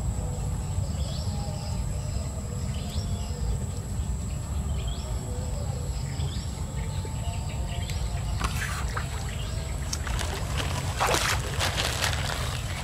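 A bird calls repeatedly, a short rising chirp about every two seconds, over a steady low rumble outdoors. Past the middle, a run of sharp noisy bursts takes over.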